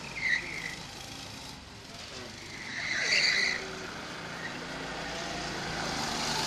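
Go-kart engines buzzing as karts lap the track, with two short high-pitched squeals, one just after the start and a louder one about three seconds in. The engine noise grows louder near the end as a kart comes closer.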